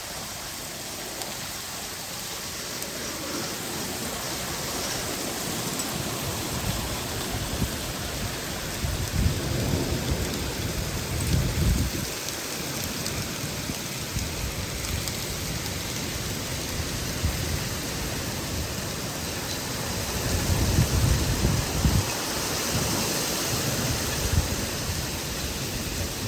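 Rain and hail pelting the surface of a koi pond: a steady hiss of falling drops and splashes. Low rumbles swell twice, about ten seconds in and again about twenty seconds in.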